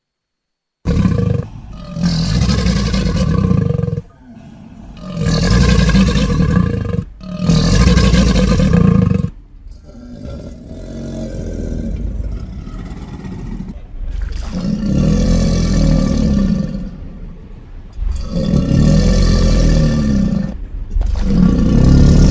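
American crocodile giving a series of loud, deep roaring calls, each lasting a couple of seconds, with short pauses between them.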